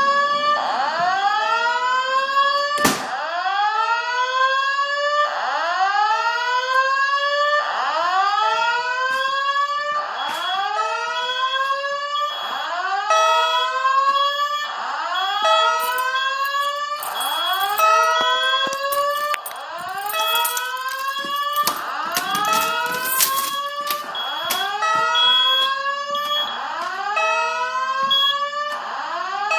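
Simplex 4100U INFOAlarm voice-evacuation speakers sounding the evacuation alarm: a whoop tone sweeping upward in pitch, repeating about every two seconds. This is the panel's full evacuation signal in alarm mode.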